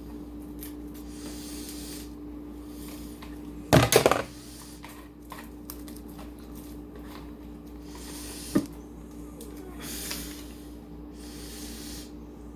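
Clear glue slime being squished and kneaded by hand in a mixing bowl after activator was added, with soft sticky handling noises over a steady low hum. A loud knock against the bowl comes about four seconds in, and a smaller click comes later.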